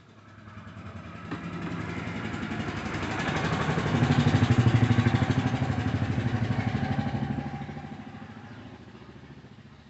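A motorcycle engine passes by: it grows louder over the first few seconds, peaks around the middle, then fades away.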